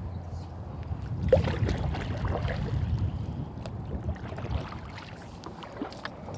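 Kayak moving on a river: irregular paddle splashes and water sloshing against the hull, over a low rumble, with a short squeak about a second in.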